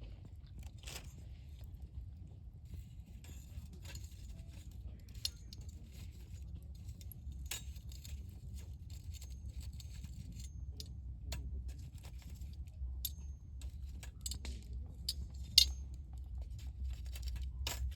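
Wood campfire crackling, with irregular snaps and pops that grow more frequent in the second half, the sharpest about three-quarters of the way through, over a low steady rumble.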